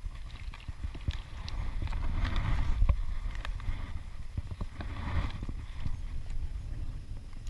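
Irregular light knocks and clicks over a steady low rumble.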